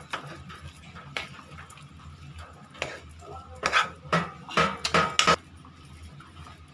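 A metal utensil knocking and scraping against a cooking pan while a potato filling is mashed and mixed. A few single knocks come first, then a quick run of louder clatters about four to five seconds in.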